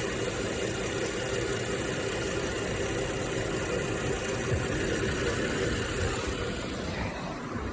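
Dodge Grand Caravan's 3.6-litre V6 idling steadily, run warm with the heater on to burp trapped air out of the cooling system after a radiator change.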